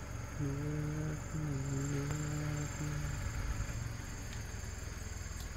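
An engine running with a constant low rumble. A steady pitched hum, broken once, stops about three seconds in, and a thin high steady tone runs throughout.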